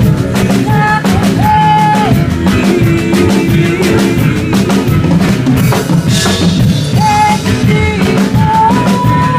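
Live rock band playing: a drum kit keeps a busy beat of bass drum and snare under long held melody notes that step up in pitch near the end.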